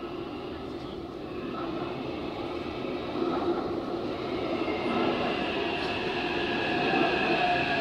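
Metro train pulling into a station platform: a rumble that grows steadily louder as it approaches, with a steady high whine strengthening over the last few seconds.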